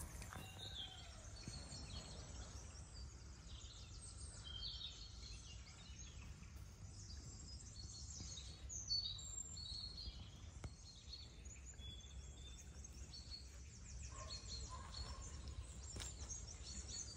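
Birds chirping and singing in short, scattered calls over a low steady rumble, with a single brief knock about halfway through.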